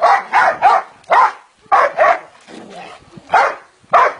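Dog barking repeatedly: a quick run of barks in the first second, then single and paired barks with pauses between them.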